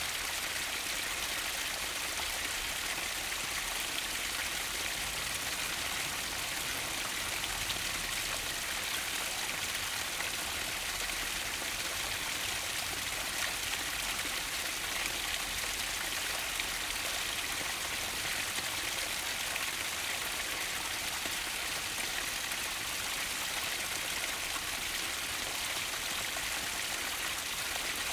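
Mountain stream running, a steady even rush of water with no single splashes standing out.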